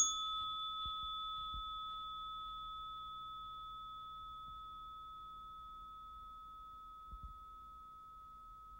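Zen Alarm Clock's metal chime bar struck once, a gentle wake-up chime that rings a clear, pure tone and fades slowly over several seconds. Two faint low thumps come about seven seconds in.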